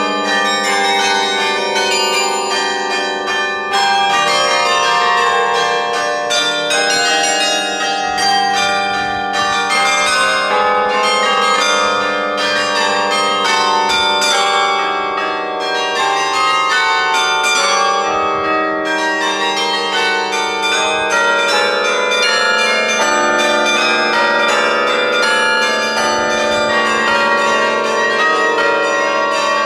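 Sather Tower's carillon being played: many tuned bronze bells struck in quick succession, carrying a melody, with their long ringing tones overlapping into a continuous wash of chimes.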